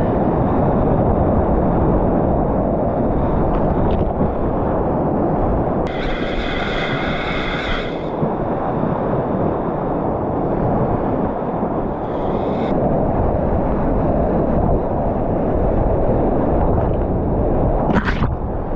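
Loud, steady rush of whitewater rapids around a kayak, heard through a helmet camera with wind on its microphone. A two-second shout comes about six seconds in, and a sharp splash hits near the end.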